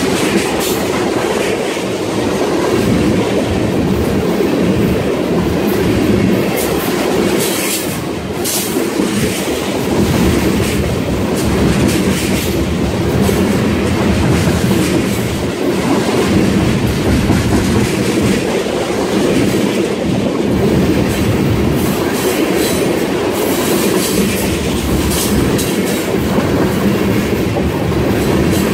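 Freight train of tank cars passing close by: a loud, steady rumble of steel wheels on rail, with repeated clicks as the wheels cross rail joints.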